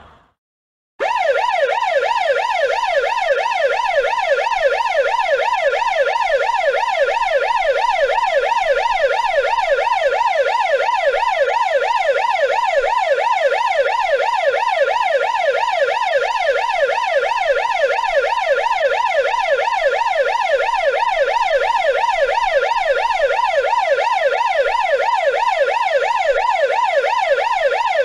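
Russian police siren in a fast yelp, its pitch sweeping up and down several times a second; it starts about a second in and then holds steady.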